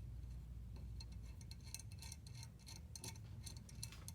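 Small, light metal clicks and ticks at an uneven pace, growing busier after the first second or so, as the bolt is twisted onto the screw that holds the rivet setter's handle in place.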